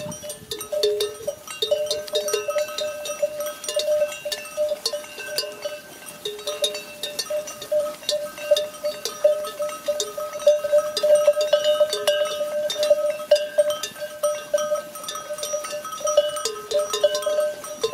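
Bells on a flock of sheep clanking irregularly as the animals move, with a few ringing pitches that come and go.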